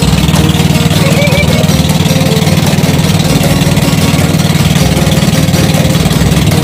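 Wooden covered boat's engine running steadily under way, a loud, even drone with a fast regular pulse.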